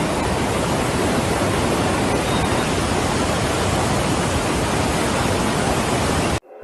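Floodwater rushing steadily, a loud even roar of water that cuts off suddenly near the end.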